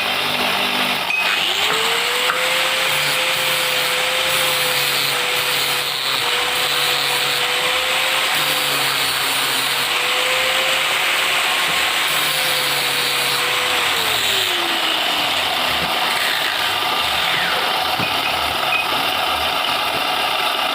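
A workshop power tool motor running steadily, with a whine that comes in about a second and a half in and winds down in pitch about fourteen seconds in, like a motor spinning down after being switched off; no regular hammer blows.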